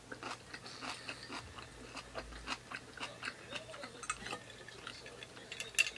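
Close-up eating sounds: a person chewing a mouthful of curry and rice, with small, irregular wet mouth clicks several times a second and one sharper click near the end.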